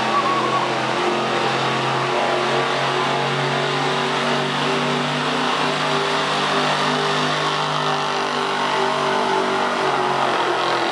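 1974 Ford F-250 pickup's gasoline engine running hard at high revs, pulling a weight-transfer sled down a dirt track.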